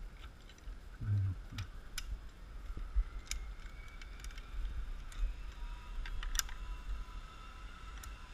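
Scattered sharp clicks, one every second or two, over a steady low rumble.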